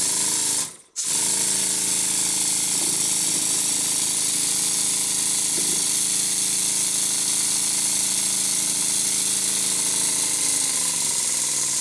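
Stuart Double 10V twin-cylinder model steam engine running fast on compressed air: a loud, steady hiss of air over a steady mechanical hum, the pitch falling near the end as it slows. The engine is still blowing, though less badly now that the slide valve has been reworked.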